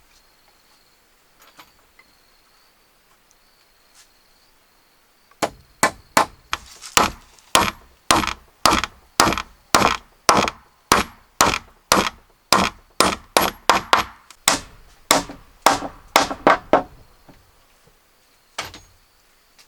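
Hammer blows on timber: a steady run of sharp, ringing strikes, two or three a second, starting about five seconds in and stopping near the end, with one last blow after a short pause.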